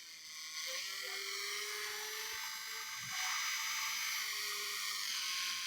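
SCE 101 cordless electric nail drill running free with its bit spinning, a steady high motor whine whose pitch steps up slightly about half a second in as the speed setting is changed.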